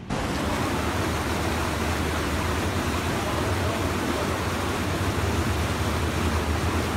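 Rushing water churning and pouring over a concrete step into a channel at the locks, a loud, steady rush.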